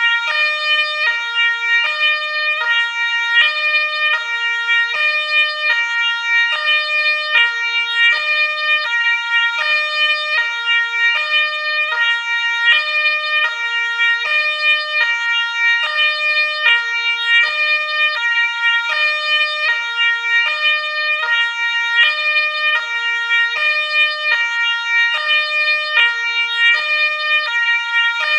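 Ambulance siren sounding continuously in a two-tone hi-lo pattern, stepping evenly back and forth between a high and a low note, with no rising or falling wail.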